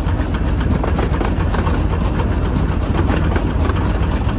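15-inch-gauge miniature steam locomotive running along the track, heard from its footplate: a steady low rumble of the running gear with rapid clicking of wheels over the rails.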